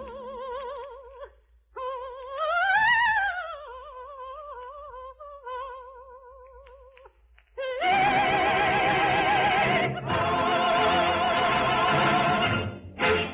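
A soprano singing an operatic cadenza alone with wide vibrato, sweeping up to a high note and back down a few seconds in, then holding notes. About eight seconds in the full orchestra comes in loudly. A faint steady hum lies under it all, as on an old radio recording.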